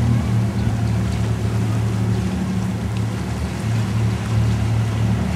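Boat engine running with a steady low drone, over a rush of wind and water.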